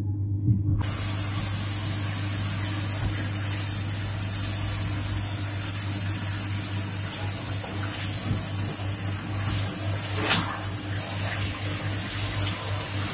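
Water running steadily from a tap or shower head, starting about a second in, with one brief knock about ten seconds in.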